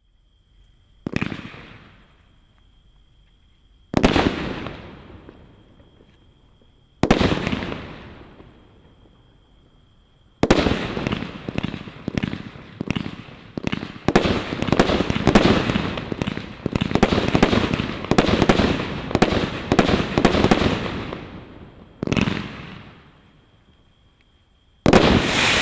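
Brothers Pyrotechnics Wind Chill 18-shot fireworks cake firing. Three single shots come about three seconds apart, then a fast volley of shots for about ten seconds, then two more single shots near the end. Each shot is a sharp report that fades over a second or two.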